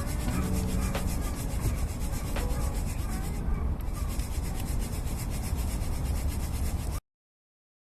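Wood fire crackling, with occasional sharp pops over a steady low rumble. The sound cuts off abruptly about seven seconds in.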